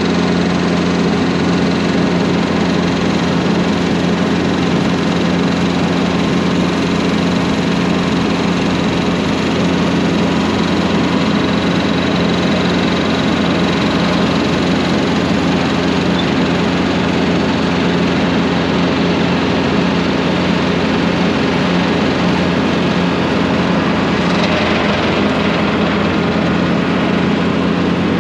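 John Deere diesel tractor engine running steadily, a loud even drone, as the loader tractor works a round bale into the tub grinder.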